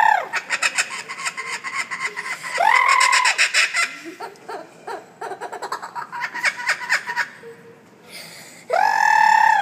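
Laughing kookaburra calling: bursts of rapid chattering notes broken twice by drawn-out hoots that rise and fall in pitch.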